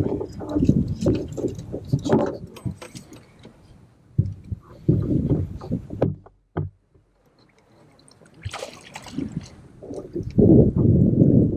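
Splashing water and irregular knocks and rustles of a bass being landed at the side of a boat and a landing net being handled, its mesh caught on the hooks; it goes quiet for a moment after about six seconds, and a louder burst of noise comes in near the end.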